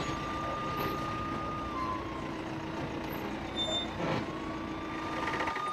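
Police siren wailing, its pitch falling about two seconds in and sliding back up to a held high note about four seconds in, over the steady hum of a vehicle's engine that cuts off shortly before the end. A single knock about four seconds in.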